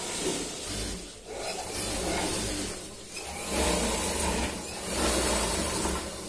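Electric sewing machines running in bursts, stitching non-woven fabric bags, a rasping whirr over a low motor hum that swells and eases every second or so.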